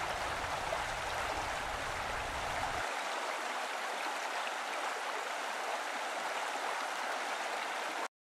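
Steady splashing of running water into a swimming pool, with a low rumble under it for the first few seconds; it cuts off abruptly just before the end.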